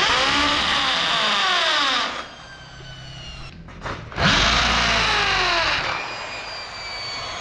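Corded Ingco impact drill boring holes into an aluminium screen-door frame in two runs of about two seconds each. The motor's whine falls away as it winds down after each run.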